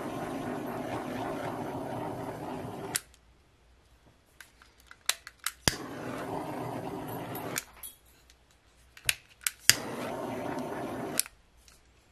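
Handheld torch running in three steady spells of flame noise, each cutting off sharply: a long one ending about three seconds in, then two shorter ones later on. Sharp clicks come in the gaps between. The flame is being passed over wet acrylic pouring paint to bring up cells.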